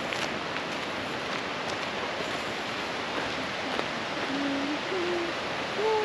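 Steady hiss of rushing water. About four seconds in, a person starts humming a few low notes that step up and down.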